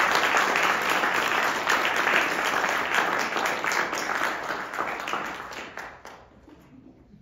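Audience applauding, a dense patter of many hands clapping that fades away around six seconds in.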